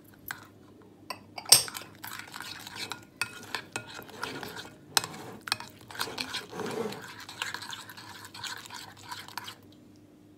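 A spoon stirring a thick yogurt and spice marinade in a ceramic bowl: wet scraping with repeated clinks of the spoon against the bowl, and one louder clack about one and a half seconds in. The stirring stops near the end.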